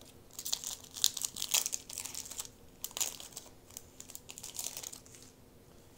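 Foil wrapper of a Pokémon trading card booster pack crinkling in quick bursts as hands handle it and tear it open, busiest in the first couple of seconds.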